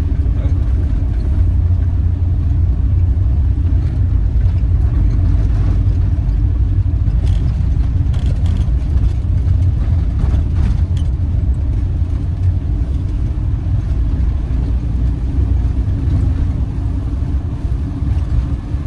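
Campervan driving on the road, heard from inside the cab: a steady low drone of engine and tyre noise.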